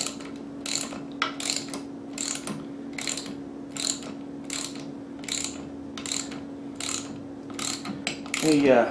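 Ratchet wrench clicking in short back-and-forth strokes, a little over one click a second, as a mounting bolt is tightened down.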